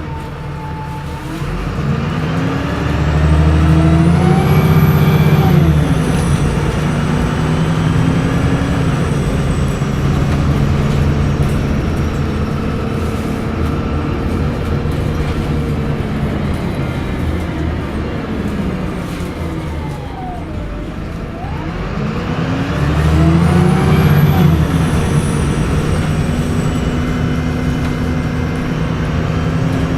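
VDL SB200 bus's diesel engine pulling away twice, its pitch rising and falling, with a high turbocharger whine that climbs and fades each time it accelerates.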